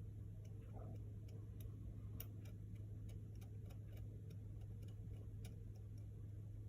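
Faint, irregular ticks and light scrapes of a small blade scratching the coating off a MacBook Air logic board to expose a trace for a jumper wire, over a steady low hum.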